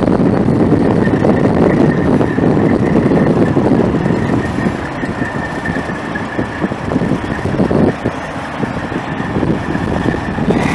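Detroit Diesel Series 60 12.7 L inline-six turbo diesel of a 1993 Kenworth W900 semi truck running steadily, with a thin steady high whine over the engine sound.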